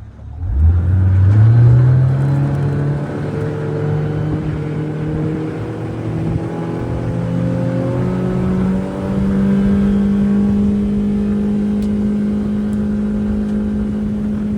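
A motorboat's engine opened up to full throttle: its pitch climbs steeply in the first couple of seconds, keeps rising slowly as the boat gathers speed, steps up again about eight and a half seconds in, then holds steady at top speed, with a rush of wind and water under it.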